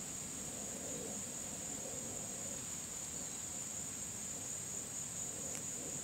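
Steady, high-pitched insect drone, unbroken and even in level.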